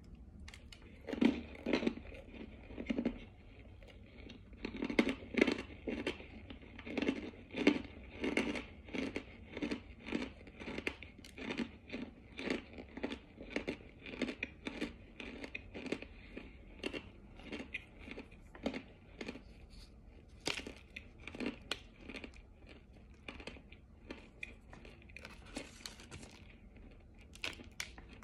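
Close-up crunching and chewing of hard, powdery cornstarch chunks: rapid crisp crunches, several a second, loudest in the first ten seconds and softer after that. A brief scratchy rustle comes near the end.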